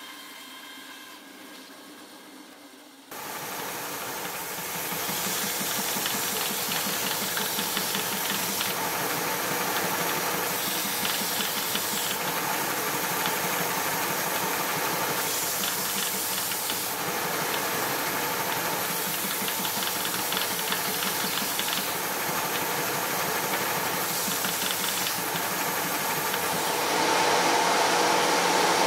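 Electric woodworking machine starts suddenly about three seconds in and runs steadily while working wood, giving an even noise that gets louder near the end.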